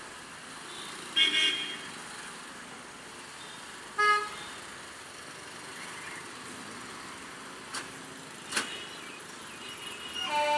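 Road traffic rolling over a railway level crossing: a steady hum of small engines, broken by a quick double horn toot about a second in and a single short horn beep about four seconds in, with two sharp clicks near the eighth second. Just before the end, a steady chord of pitched tones comes in.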